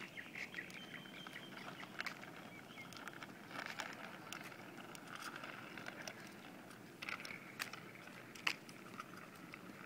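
Faint rattling and patter of a child's bicycle with training wheels rolling over asphalt, with a few sharp clicks near the end.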